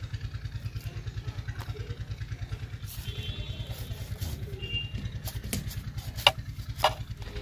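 A small engine running steadily with an even low throb, about ten beats a second. Near the end, two sharp clicks from a knife cutting through fish pieces over a clay bowl.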